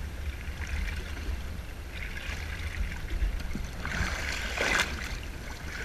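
Seawater sloshing and splashing against the side of a boat's hull at the waterline, over a steady low rumble. The splashing grows louder about two seconds in and again about four seconds in.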